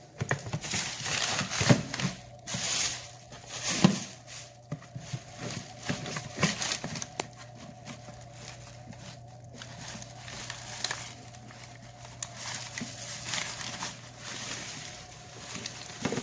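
Irregular crunching and crackling of crunchy debris being crushed, with louder bursts in the first four seconds and a faint steady hum underneath.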